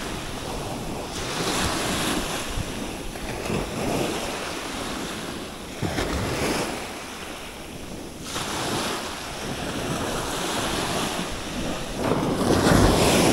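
Small waves breaking and washing up on a sandy shore, swelling and fading every couple of seconds, loudest near the end, with wind rumbling on the microphone.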